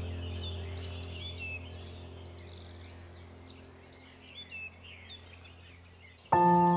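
Small birds chirping and twittering steadily. A low droning background music fades out over the first few seconds, and near the end a new piece of ambient music starts suddenly with sustained tones, louder than the birds.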